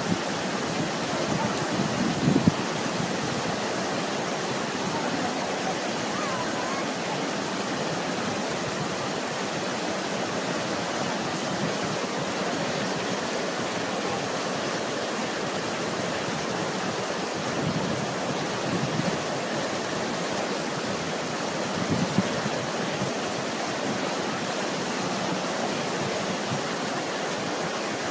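Swollen, muddy floodwater rushing past in a steady, unbroken noise.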